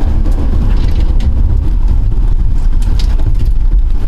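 Police cruiser driving hard in a pursuit, heard from inside the car: a loud, steady low rumble of engine and road noise, with a few short clicks over it.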